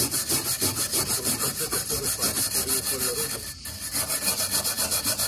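Fast back-and-forth hand scrubbing strokes on metal, about five a second, with a brief pause a little past halfway.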